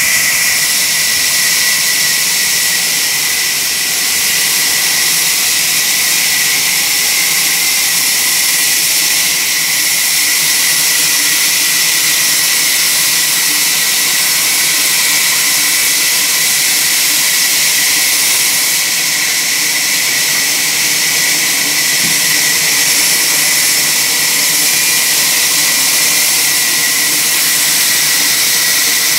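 Industrial bandsaw mill running as its log carriage feeds an East Indian rosewood log through the blade: a steady, high-pitched sawing noise.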